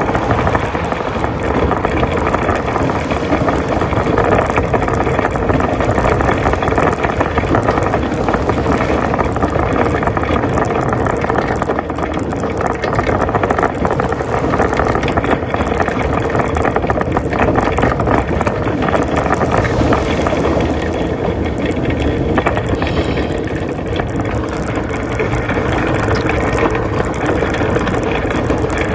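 Shopping cart rattling steadily as it is pushed along the road, a loud, unbroken clatter of its wheels and frame.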